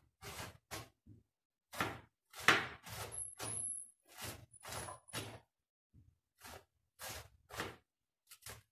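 Kitchen knife slicing a saba banana blossom on a cutting board: a run of short cutting strokes, about two a second.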